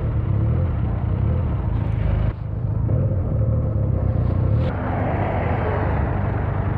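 Benelli 302's parallel-twin engine and exhaust running steadily while the motorcycle is ridden, with a brief dip in level a little over two seconds in.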